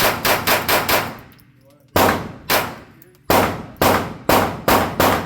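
Gunshots fired in quick succession: a rapid string of four, then two more, then another fast string of five or so, each a sharp crack with a short ringing tail.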